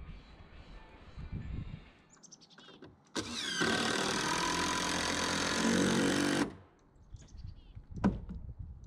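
An electric power saw starts, spins up and runs for about three seconds, then cuts off. A single sharp knock follows near the end.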